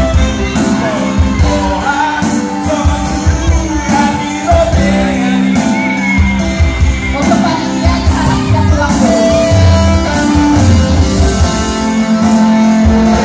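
Pop song with a singing voice over a steady beat and instruments.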